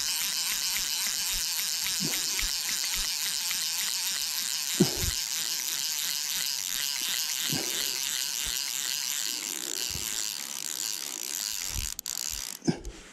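Fly reel's click-and-pawl ratchet buzzing steadily as line runs through it while a hooked trout is played, stopping near the end. A few dull knocks from handling.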